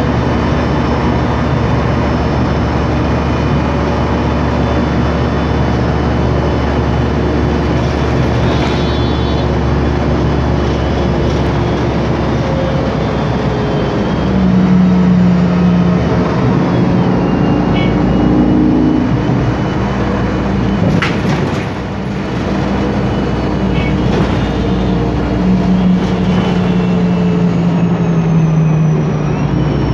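Cabin sound of a MAN Lion's Classic city bus under way, its CNG engine and Voith DIWA automatic gearbox running. Over a steady low hum, a drone comes and goes, held for about two seconds in the middle and for about three seconds near the end: the whine of a noisy rear differential.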